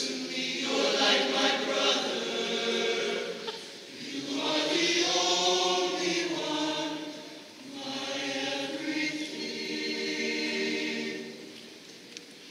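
All-male choir singing sustained chords in phrases that swell and ease off, the last one fading near the end.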